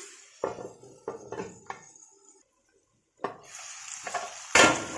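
A metal lid clanks several times as it is set onto a grill pan of sizzling chicken and vegetable skewers, then the sound drops out briefly. The sizzling comes back and swells to a loud rush near the end.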